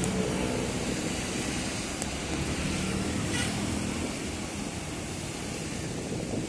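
Steady noise of small waves washing onto a sandy beach and wind on the microphone, with a low engine hum underneath, strongest in the first few seconds.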